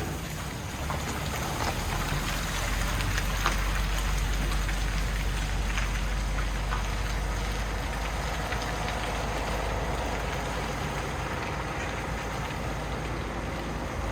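Rain pattering on a Peterbilt 389 semi truck's cab, with the truck's diesel engine running as a steady low hum underneath.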